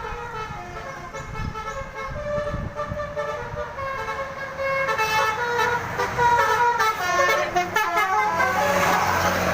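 A bus's multi-tone 'telolet' horn playing a melody in stepped notes over the low rumble of the bus, growing louder about five seconds in.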